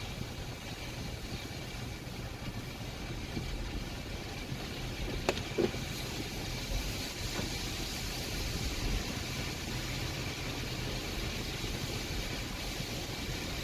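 Steady street-traffic noise of cars running along a road, with a short sharp click a little over five seconds in.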